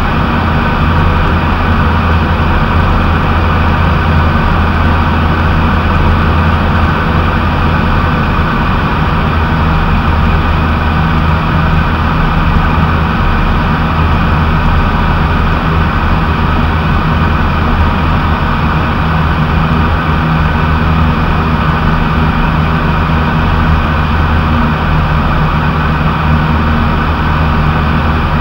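Light aircraft's piston engine and propeller droning steadily in cruise flight, heard from inside the cockpit as a loud, even low hum with a rushing hiss over it.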